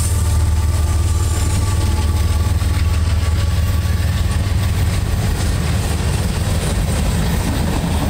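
Freight cars of a CSX mixed freight train rolling past close by: a steady low rumble of wheels on the rails.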